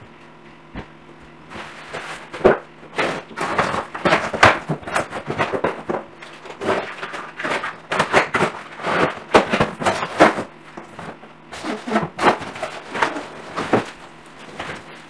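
Cardboard box and plastic wrapping rustling and crinkling as a dining chair is unpacked, in irregular bursts of rustles and knocks starting about a second and a half in and dying down near the end.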